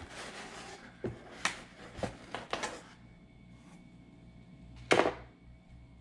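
Rustling and light knocks from a cardboard box and its contents being handled, with a louder sharp knock about five seconds in.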